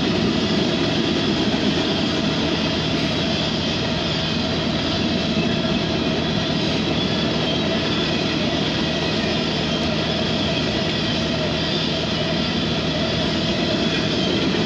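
Tank cars of a CSX freight train rolling past: a steady noise of steel wheels on rail, heard from inside a car.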